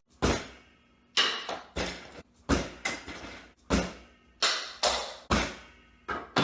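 A series of sharp knocks or blows, about a dozen at irregular half-second intervals, each dying away quickly with a short echo as in a small room.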